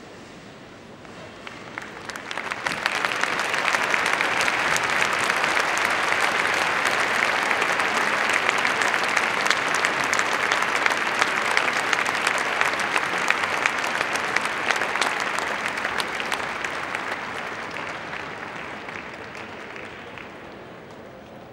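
Large indoor arena crowd applauding. The clapping swells in over the first few seconds, holds steady and loud, then slowly dies away toward the end.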